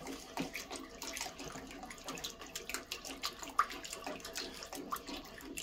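An egg-and-broth mixture pouring slowly from a plastic bowl into a pot of soup while a wooden spoon stirs, with soft sloshing and many light taps of the spoon against the pot.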